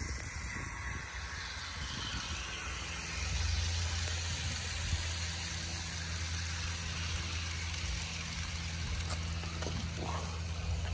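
HO scale model freight train running along its garden track: a steady low hum under an even, noisy hiss.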